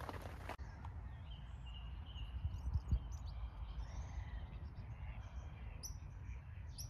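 Outdoor lakeside ambience: several short bird chirps scattered over a steady low rumble.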